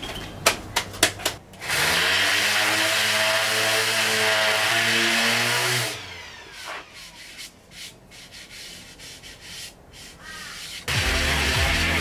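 A few knocks, then an electric random-orbital sander spins up and runs steadily for about four seconds, sanding a Western Red Cedar lining board. It winds down with a falling whine. Quieter clicks and scrapes of handling follow, and a loud steady run starts again about a second before the end.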